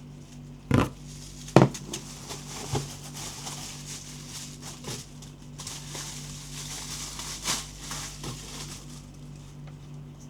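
Unboxing handling noises: two sharp knocks about a second in, then a stretch of crinkly rustling of packaging with a few lighter taps, over a steady low hum.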